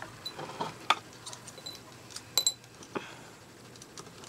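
Scattered small clicks and taps as a small screwdriver and tiny motor screws are handled against an e-spinner's plastic motor mount. The loudest, about two and a half seconds in, is a short ringing clink.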